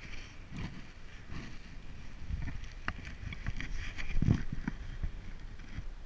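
Gusty wind buffeting the microphone in a small boat, with scattered knocks and clunks, the loudest about four seconds in.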